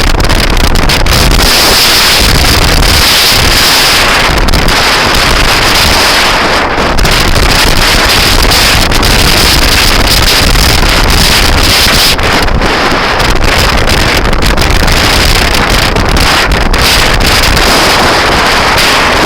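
Loud wind noise buffeting the microphone while riding a scooter at speed, a steady rush with gusty dips and no break.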